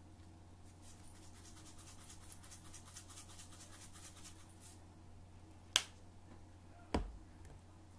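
Dried onion flakes shaken from a spice container into a bowl of chicken wings: a quick, faint run of light rattling ticks lasting about four seconds. It is followed by a single sharp click and then a dull knock, as of the container being closed and set down.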